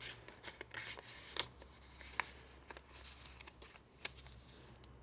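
Paper pages and card inserts of a handmade junk journal being handled and turned: light rustling with a series of soft clicks and taps.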